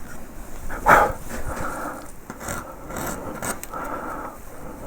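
Small carving gouge paring wood in a series of short cuts, the sharpest and loudest about a second in.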